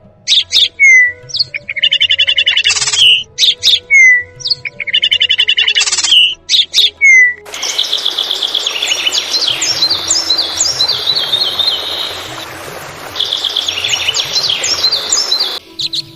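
Songbirds singing: a loud phrase of sharp notes, a fast trill and a short falling whistle, repeated three times. About seven seconds in, it changes abruptly to dense chirping from several birds over a steady hiss.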